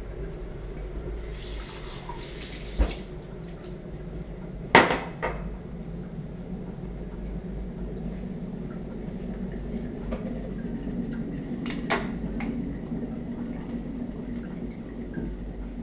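Mugs and utensils being handled on a kitchen counter: a few sharp clinks and knocks, the loudest about five seconds in, with a brief hiss near the start, over a low steady hum.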